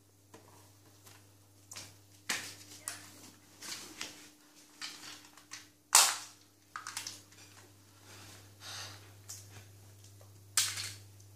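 Hard plastic clicks and clacks from a toy transforming robot car being handled, a dozen or so irregular sharp knocks, the loudest about six seconds in and again near the end.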